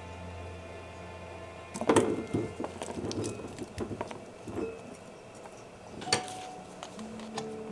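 Cooked daikon radish pieces and their cooking water tipped from a round cooking container into a bowl and pushed out with chopsticks: a burst of knocks, clinks and patter for about three seconds, then one sharper clink about six seconds in. Soft background music at the start and near the end.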